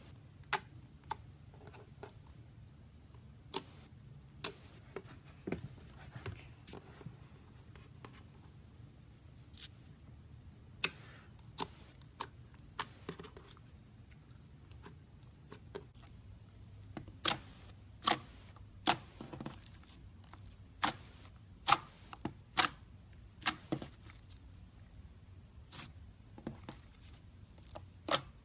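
Slime being squeezed and poked by hand, with air pockets popping as sharp, irregular clicks. The clicks come thicker and louder past the halfway point.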